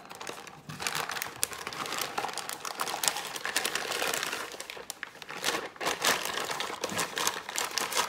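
A plastic shopping bag and paper wrapping crinkling and rustling as they are handled and a boxed item is pulled out, a continuous crackle that starts about half a second in.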